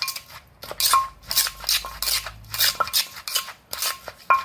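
Som tam being pounded and mixed in a mortar: pestle strokes and a spoon scraping and clinking against the mortar, in an even rhythm of about two to three strokes a second.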